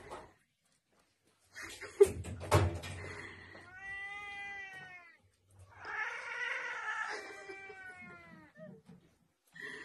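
A house cat gives two long drawn-out yowls at another cat, the second rougher, a warning in a standoff between the two cats. Two sharp knocks come about two seconds in, just before the yowls.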